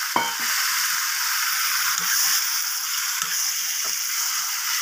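Radish and oil sizzling steadily in a metal pan as raw chicken pieces are added and mixed in, with a sharp ringing clink just after the start and a few soft knocks later.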